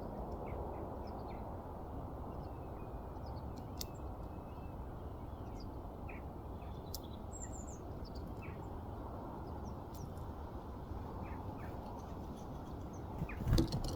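Small garden birds giving short, scattered chirps and call notes over a steady low background rush, with a few sharp clicks. Near the end, a louder run of knocks and bumps begins.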